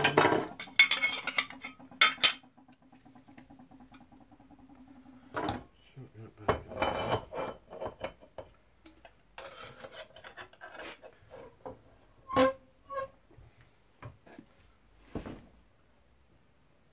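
Sheet-metal plate being worked by hand: metal scraping and rubbing with scattered knocks, and a loud ringing metal clank about twelve seconds in. A steady low hum runs through the first five seconds or so.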